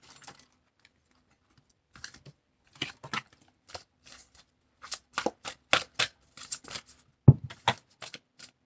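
Cards being handled: a run of short, crisp clicks and rustles as a deck is sifted through, with a heavier tap a little before the end.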